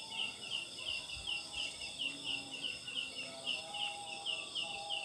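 Insect calling at night in a steady run of short, high chirps, about three a second: the 'ciang-ciang' call, which the uploader attributes to the leaf insect Phyllium pulchrifolium (belalang daun). Fainter, lower-pitched calls run beneath.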